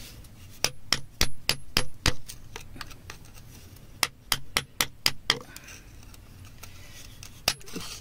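A flat metal tool tapping and clinking against rock, some strikes ringing briefly. The strikes come in two quick runs of about six or seven each, the first about half a second in and the second about four seconds in, then one more near the end.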